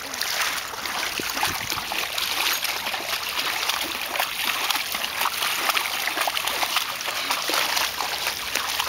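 A dog and a person wading through shallow water: steady splashing and trickling of feet stepping through the water.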